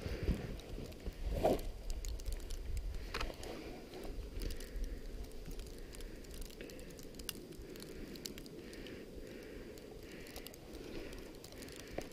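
Low, steady wind rumble on the microphone with faint, scattered crackles and crunches.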